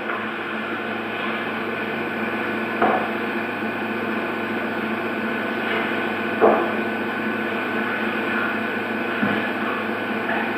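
A few short knocks on a wooden stage, the loudest about six and a half seconds in, over a steady hum.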